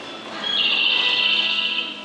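Train approach melody on the station's public-address speakers: a loud, high warbling trill that starts about half a second in and stops just before the end.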